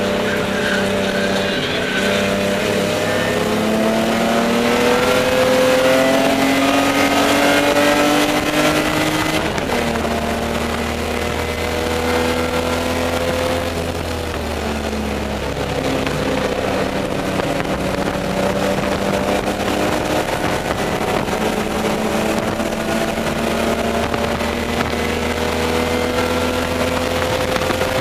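Spec E30 BMW's straight-six race engine heard from inside the car's stripped cabin, pulling hard with the revs climbing for about nine seconds. The pitch then drops at an upshift, again a few seconds later, before a steadier pull at high revs.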